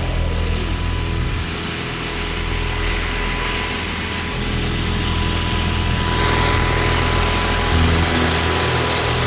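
A small engine running steadily, its low hum shifting in pitch a few times.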